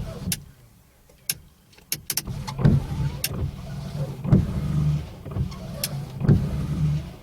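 Vauxhall Corsa C windscreen wiper motor and blades sweeping, stopping near the start, then a few sharp clicks of the wiper stalk switch, and the wipers starting again with a regular sweep about every second and a half to two seconds. The wipers run on the newly fitted stalk, the sign that the replacement stalk works.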